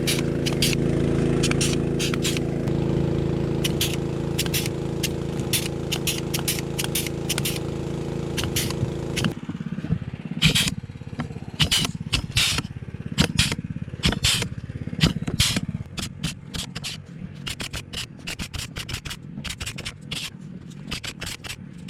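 Small petrol engine driving an air compressor runs steadily, under repeated short, sharp hissing snaps of pneumatic pruning snips cutting. The engine sound drops out about nine seconds in, and the snips keep snapping at an uneven pace.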